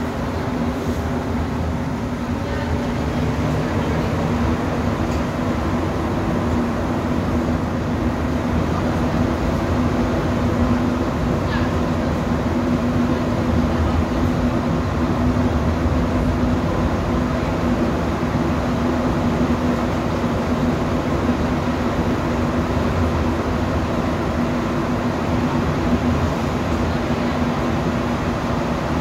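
Montreal Metro rubber-tyred train running at speed through a tunnel, heard from inside the car: a steady rumble with a constant low hum.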